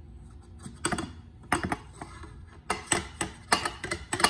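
Glass measuring cup clinking and knocking against a stainless steel mixing bowl as flour is tipped and shaken out of it. The sharp knocks come irregularly and in small clusters, the loudest near the end.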